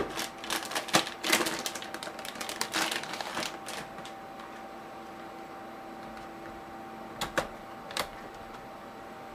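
Crinkling plastic wrapping and handling clatter as a new laptop battery is unwrapped and lined up. Then, about seven to eight seconds in, three sharp clicks as the battery snaps into the Dell Latitude D620's battery bay. A faint steady hum runs underneath.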